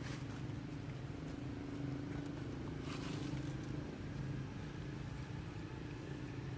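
A low, steady motor hum, like an engine running, with a short rustle about three seconds in.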